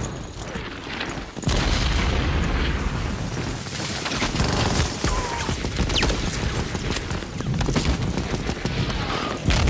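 War-film battle sound: dense rifle and machine-gun fire over heavy, low booming explosions, with a sudden loud blast about a second and a half in.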